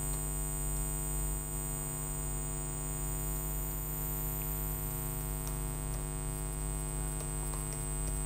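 Steady electrical mains hum, a stack of low even tones with a thin high whine above it, with faint scattered keyboard clicks in the second half.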